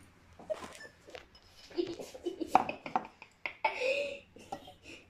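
Children's voices, short and wordless, with a couple of sharp knocks about two and a half and three and a half seconds in.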